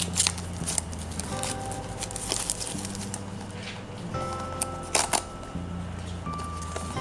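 A small cardboard toy box being opened and handled: scattered crinkles, clicks and taps, with one louder crackle about five seconds in. Light background music plays underneath.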